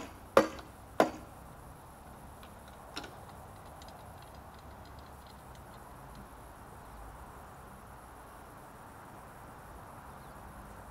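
Sharp knocks of hard objects striking: two within the first second, a fainter one about three seconds in with a few light ticks around it, then only a low steady background.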